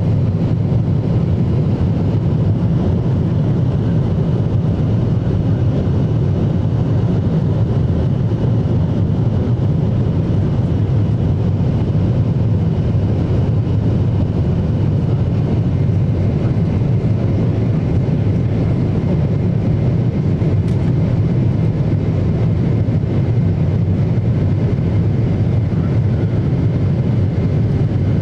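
Steady roar of a Boeing 747-8's GEnx-2B turbofans and the rushing airflow, heard inside the cabin during the climb after takeoff. It is deepest in the low range, with a faint steady high whine over it.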